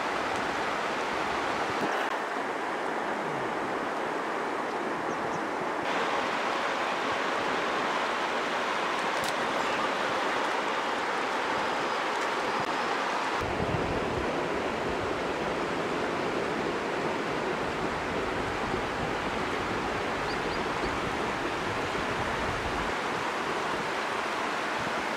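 Steady rushing of river water at the bank, with its tone shifting abruptly a few times; from about halfway a low rumble of wind on the microphone joins it.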